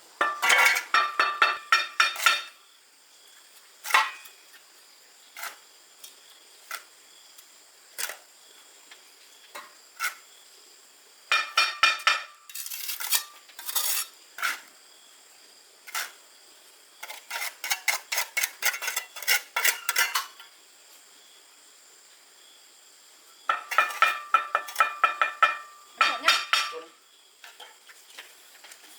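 Metal clinking and scraping against a metal pan, in bursts of quick ringing strokes with single knocks between them.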